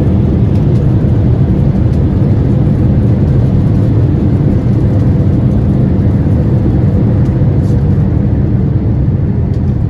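Steady low rumble heard inside the cabin of a Boeing 787-9 Dreamliner rolling on the runway or taxiway just after landing, with a faint steady tone above it.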